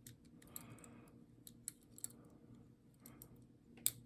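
Pick wire scraping and clicking against the levers of a five-lever padlock under tension, a few faint irregular clicks with a sharper click near the end.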